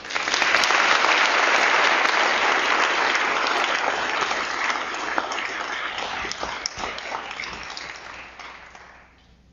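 Audience applauding, starting suddenly, loudest in the first couple of seconds, then slowly dying away over about nine seconds.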